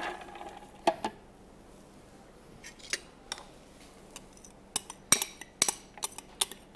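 A bowl clinking and knocking against a blender jar as chopped onion is tipped in. There are two knocks about a second in, then a quick run of sharper clinks near the end.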